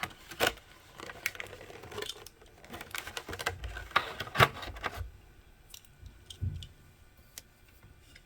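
Scattered clicks and light knocks of hands handling a small diecast toy car and its plastic packaging, busier for the first five seconds and then only a few faint ticks.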